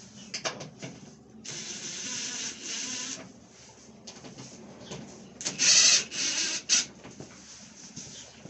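Screws being backed out of a wooden door handle: two spells of mechanical whirring and grinding, each about a second and a half long, the second louder, with clicks and knocks between.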